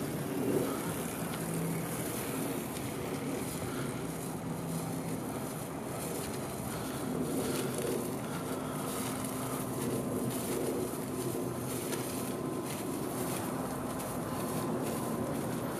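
Steady low mechanical hum over street background noise, with light footsteps on pavement.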